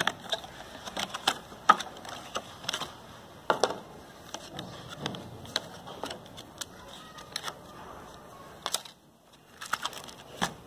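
Stiff clear plastic packaging being opened and handled: irregular clicks, crackles and crinkles as the box is pulled apart and the speaker slides out in its plastic sleeve.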